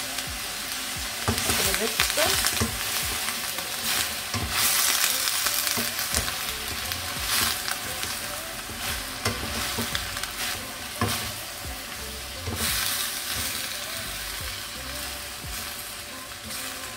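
Vegetables sizzling in hot olive oil in a stainless steel wok on high heat, stirred and tossed with a wooden slotted spatula that scrapes and knocks against the pan again and again. The sizzle eases off somewhat in the second half.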